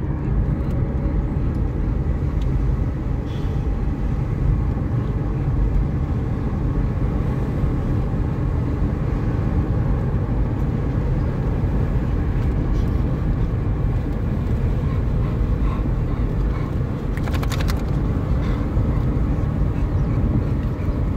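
Steady road and engine noise of a car being driven, heard from inside the cabin as an even low rumble, with a short clatter late on.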